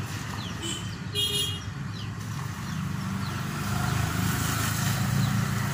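A motor vehicle engine running steadily with a low hum, with short high chirps scattered over it.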